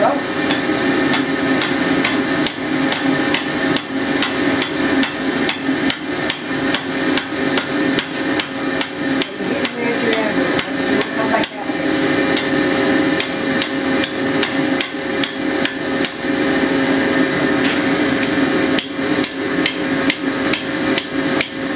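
Hand hammer striking a red-hot iron bar on a steel anvil: a long run of regular ringing blows with a few short pauses while the bar is forged into a scroll. A steady hum from the forge's air blower runs underneath.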